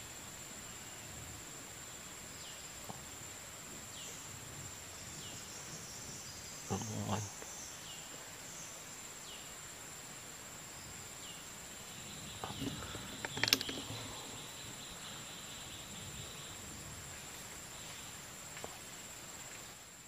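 Outdoor tree-canopy ambience: a steady high-pitched whine with short, high, falling chirps repeating about once a second. A low thump comes about seven seconds in, and a sharp snap, the loudest sound, comes a little past the middle.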